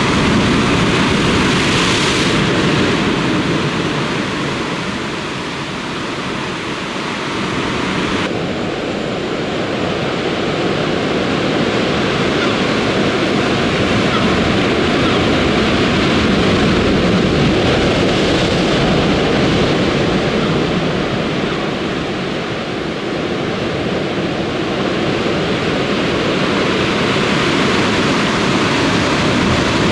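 Heavy Atlantic surf breaking and washing over a rocky volcanic shore: a continuous loud rush of white water that eases briefly twice and builds again.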